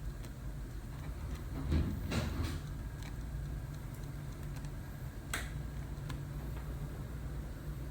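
Mitsubishi Mr.SLIM four-way ceiling-cassette air conditioner indoor unit running on cooling, its fan giving a steady low hum. A few light clicks sound around two seconds in, and a sharper one about five seconds in.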